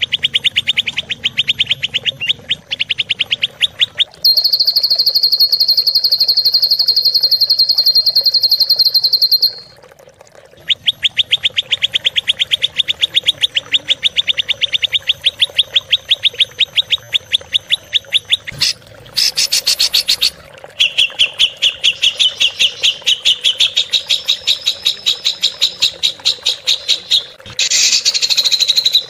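Recorded songbird song of harsh, rapid-fire repeated notes ('tembakan kasar'): long strings of fast chips, a higher unbroken fast trill a few seconds in, a brief pause, then more rapid note series, played as masteran for training songbirds.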